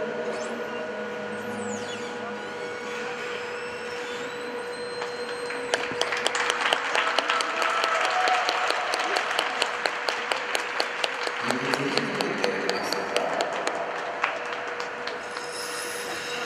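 The last quiet moments of the program music, then audience applause that starts about six seconds in and carries on as the skater holds her final pose.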